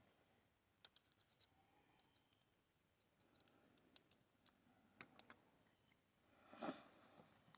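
Quiet, scattered small clicks and light handling noises from loading a black-powder revolver's cylinder by hand, with one louder rustle or scrape near the end.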